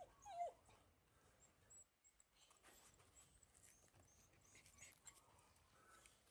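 Baby macaque giving one short call with a falling pitch about half a second in, then near silence with faint scattered clicks and rustles.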